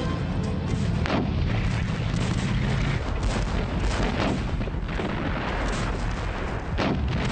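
Battle sound effects: gunfire and artillery booms over a continuous dense rumble, with sharp shots standing out about a second in, around four seconds and near the end. Background music carries through the first second.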